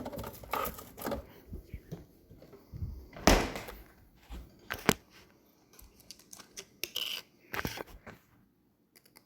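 Scattered knocks and clicks of a relish jar and other kitchen things being handled, the loudest knock about three seconds in. It goes quiet near the end.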